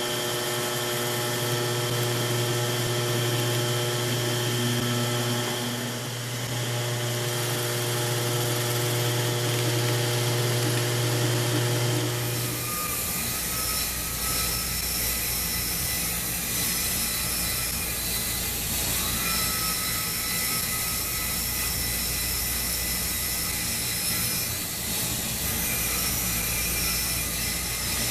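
A drill press running steadily as it bores through a stack of tempered hardboard blanks. About 12 seconds in the sound changes suddenly to a bandsaw running and cutting through the stacked hardboard.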